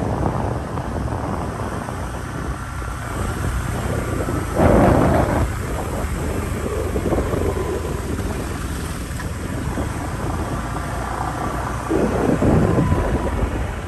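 Wind rushing over the microphone of a moving motorbike, over a steady low engine and road rumble. It swells louder briefly about five seconds in and again near the end.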